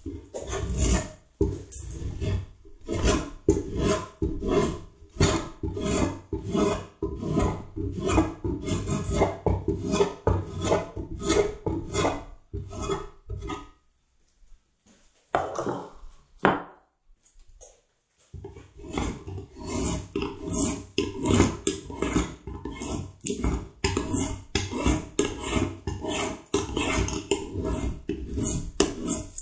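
A hand-held edge tool shaving a wooden Windsor chair seat in quick repeated strokes, about two a second. Near the middle the strokes stop for about four seconds, with a couple of brief knocks, and then resume.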